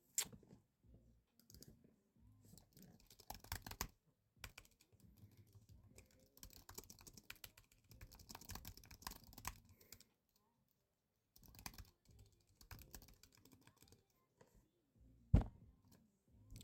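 Faint typing on a computer keyboard: clusters of quick key clicks, then a pause, a shorter run of clicks, and one sharper, louder click near the end.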